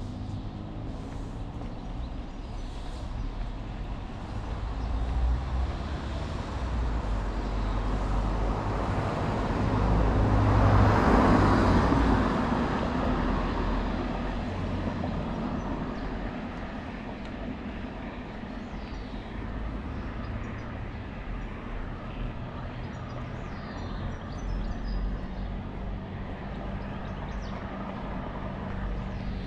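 A motor vehicle passes on the street, its engine and tyre noise swelling to a peak about a third of the way in and then fading, over a steady low rumble of traffic.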